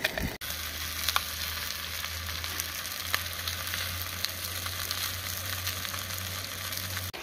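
Spatchcocked chicken sizzling on a ridged cast iron grill skillet over a gas stove: a steady frying hiss with scattered small pops, and a steady low hum underneath.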